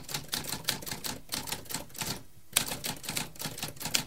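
Typewriter keys clacking in quick succession, about four strikes a second, with a brief pause about two seconds in.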